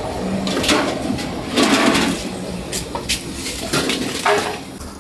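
Street-food stall bustle: scattered clinks and knocks of aluminium bowls and utensils over steady street noise, with a louder rush of noise about two seconds in.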